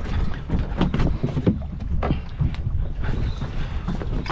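Wind buffeting the microphone over a low rumble aboard a small fishing boat under way, with scattered short knocks.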